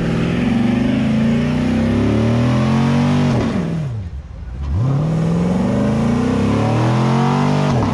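Performance car engine revved hard twice, each time climbing quickly, holding high for about three seconds, then dropping back. The car is held on the brake with the gas floored and traction control off, as in a brake-stand burnout.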